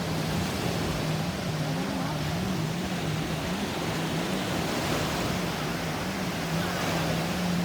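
Towing motorboat's engine running steadily with a droning note that wavers slightly up and down, over a rush of wind and water.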